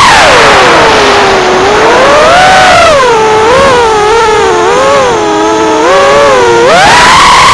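Skip HD drone's small electric motors and propellers whining, several close tones rising and falling together as the throttle changes, with a sharp rise near the end. The owner hears an abnormal noise here after a crash, despite new propellers, and suspects one motor that got mud in it.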